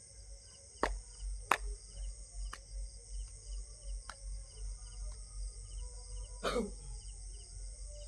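Insects chirping steadily, a repeating short chirp over a constant high hiss. Low rhythmic thuds, a few sharp clicks and one louder sound near the end come on top.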